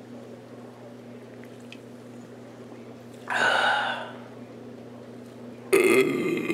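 A man's wordless vocal sounds: a loud breath about three seconds in, then a louder, abrupt voiced sound near the end, over a steady low hum.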